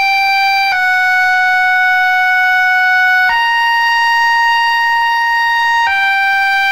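Loud electronic siren-like tone played through a large DJ speaker stack, in long held notes of about two and a half seconds each: a slightly lower note, then a higher one, then back to the first pitch near the end.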